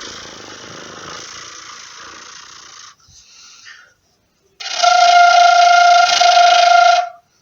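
Flutter-tongued breath (frulato, a rolled R) blown without a note for about three seconds, then a short breath. Then a single steady note on a cane quena, held for about two and a half seconds with the same breathy flutter; this note is the loudest part.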